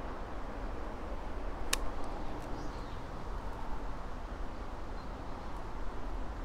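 Outdoor ambience: a steady hiss over a low rumble, with a single sharp click a little under two seconds in and a faint high chirp shortly after.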